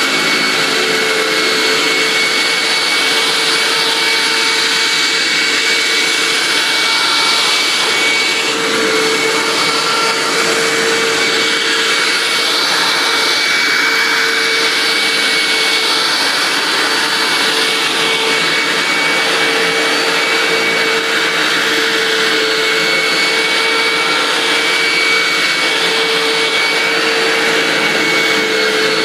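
Hoover WindTunnel upright vacuum cleaner running steadily, its motor holding a constant whine over the rush of air.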